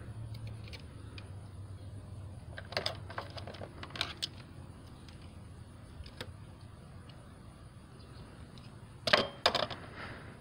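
Light metallic clicks and clinks of needle-nose pliers worked on wires, in a few small groups, with two louder clinks near the end, over a low steady hum.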